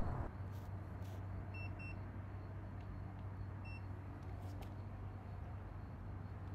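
Quiet outdoor background: a steady low rumble with a few faint, very short high chirps, two close together and one more a couple of seconds later, and a few faint clicks.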